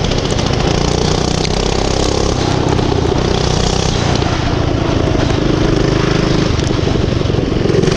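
Motorbike engine running steadily under way, its pitch shifting up and down a little.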